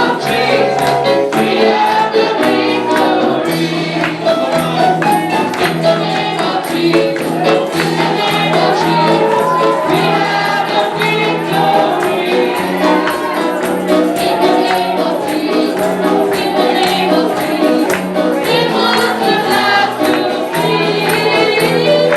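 Gospel choir singing over a band, with a steady tambourine beat.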